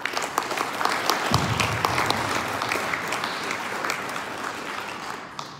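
Audience applauding, dying away near the end, with a brief low thump about a second and a half in.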